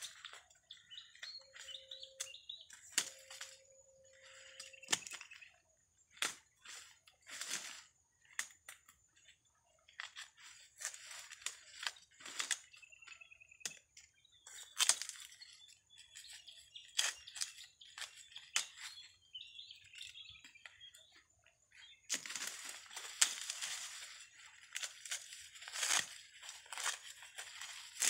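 Dry corn husks and stalks crackling and snapping in irregular bursts as ears of corn are picked and husked by hand, getting denser in the last few seconds. Faint chirping in the background.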